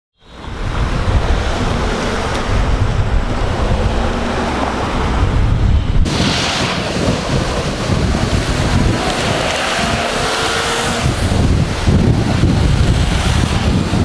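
Street traffic at a signalled intersection: cars passing, with wind buffeting the microphone in a heavy low rumble. In the second half a passing vehicle's engine tone falls slightly as it goes by.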